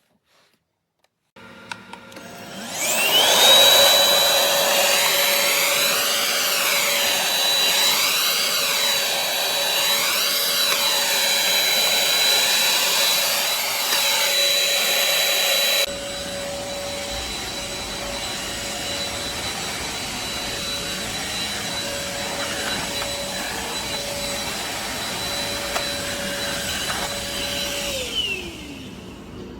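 Akitas V8 cordless stick vacuum cleaner switching on and spinning up to a steady high-pitched motor whine. The rush of air above it rises and falls about every two seconds for a while, and the whole sound drops a little in level about halfway through. Near the end the motor is switched off and winds down with a falling whine.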